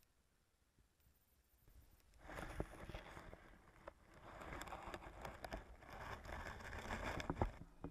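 Muffled underwater noise of a camera held beneath pond ice: irregular water sloshing with small knocks and clicks against the housing, starting about two seconds in after near silence.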